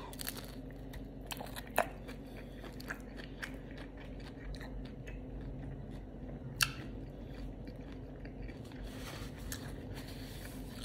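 Crunchy low-carb taco shell being bitten and chewed: a steady run of crisp crackles, with two sharper, louder crunches about two seconds and six and a half seconds in.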